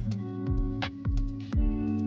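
Background music with a steady beat: kick drum and snare under sustained guitar or keyboard notes.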